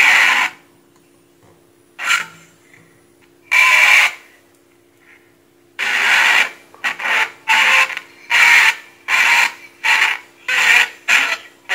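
Rasping bursts of noise, each about half a second long, come from the test loudspeaker as a probe is touched to points in a car amplifier's preamplifier stage to trace the audio signal. A steady low hum runs underneath. The bursts come a few seconds apart at first, then about two a second from about six seconds in.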